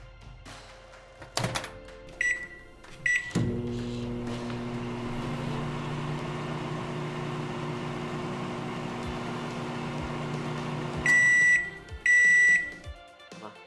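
Small countertop oven being started: a knock, two short button beeps, then a steady hum for about eight seconds while it heats. Near the end, two long beeps signal that the cycle is done.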